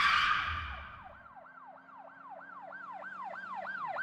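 A sudden hit that fades over about a second, then a siren wailing in a fast yelp, about four sweeps a second, growing louder toward the end.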